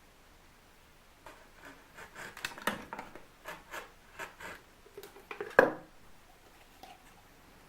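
Small wooden pieces handled and tapped together: a run of irregular light clicks and knocks, with one sharper knock about five and a half seconds in. The scroll saw is not running.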